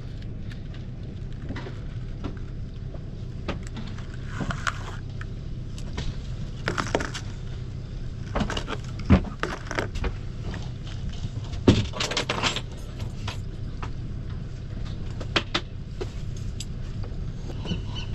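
Rustling and small clicks of 100 lb fluorocarbon leader line being handled and tied into a knot, with two sharper clicks around the middle, over a steady low hum.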